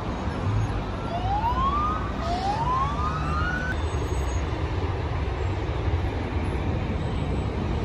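A police siren gives two short rising whoops, the second a little longer, over steady road traffic noise.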